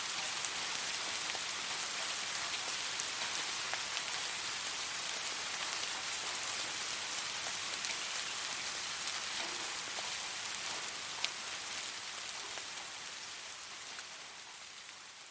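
Steady rain falling, a dense even hiss with scattered sharper drop ticks, fading gradually over the last few seconds.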